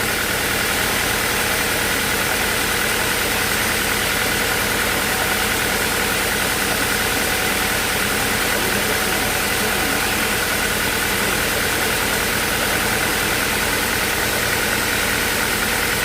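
Sawmill machinery running steadily, with an even drone that does not change.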